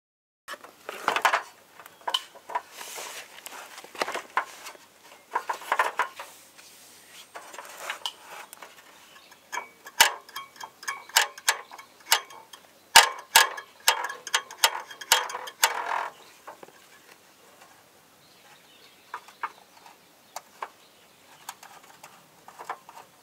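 Hands handling small parts in an opened plastic meter housing: a dense run of clicks, rattles and short scrapes that thins out to a few scattered clicks in the last third.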